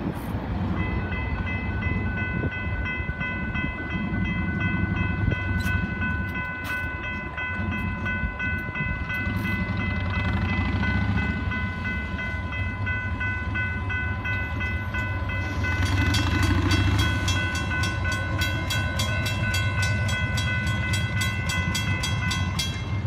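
Railroad grade-crossing warning bell ringing with a steady, multi-tone ring over the low rumble of a freight train's cars rolling away. Near the end the ringing stops as the gates come up.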